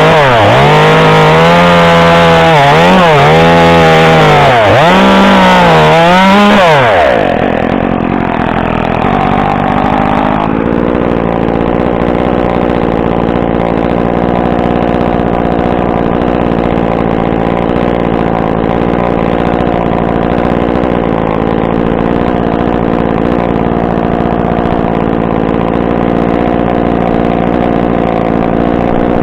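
Two-stroke chainsaw, probably the Echo CS-2511T top-handle saw, revving high and bogging down repeatedly under load as it cuts wood. About seven seconds in, the saw drops to a steady idle that carries on to the end.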